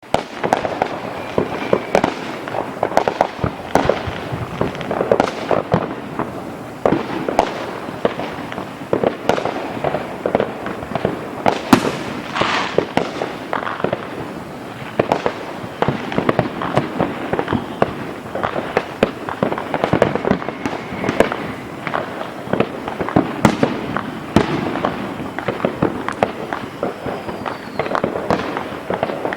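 Fireworks display: a continuous barrage of shell bursts and bangs with dense crackling. The loudest bang comes about twelve seconds in, and a few short whistles are scattered through.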